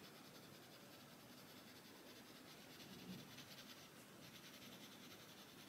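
Faint scratching of a Castle Arts coloured pencil in cool grey shading gently and lightly on paper.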